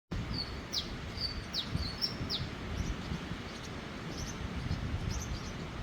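A bird calling: a short whistled note, then a quick downward-sweeping chirp, three times in the first two and a half seconds, followed by fainter scattered chirps, over a low steady rumble.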